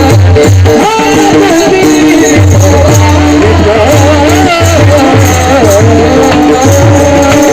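Devotional bhajan music in an interlude between sung verses: a wavering melody over held drone notes, with a steady, repeating low drum beat and jingling percussion.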